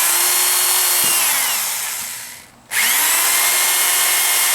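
Power drill pre-drilling screw holes through cut rain-gutter perch pieces. It runs at full speed, winds down with falling pitch as the trigger is let off, then spins up again for a second hole.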